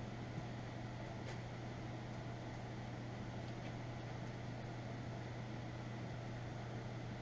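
Electric soldering gun switched on and heating a solder joint, giving a steady low electrical hum with a hiss underneath.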